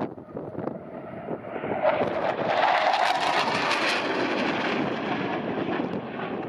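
Low-flying military jet passing by: its engine roar swells about two seconds in, is loudest a second or two later, then slowly fades. Wind buffets the microphone at the start.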